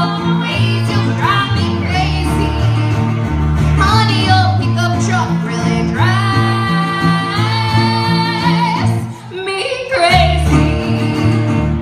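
Country song: a woman singing over guitar and a pulsing bass line, holding one long note in the middle, with a brief drop in the backing about nine seconds in.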